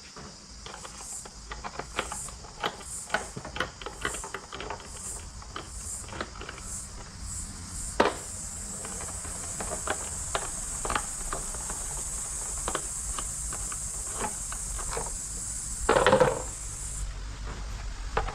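Irregular small metallic clicks and taps of hand tools and bolts while motorcycle fender bracket bolts are being fitted, with a sharper knock about eight seconds in, over a steady high hiss.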